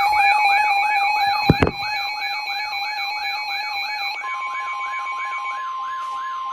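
Emergency alert tones overlapping: a warbling tone rising and falling about three times a second over steady alert tones. There is a short thump about one and a half seconds in. A single steady tone comes in about four seconds in and carries on as the other steady tones stop.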